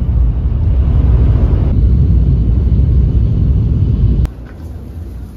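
Loud, low rumble of a Shinkansen bullet train in motion. It cuts off abruptly about four seconds in, leaving a much quieter background.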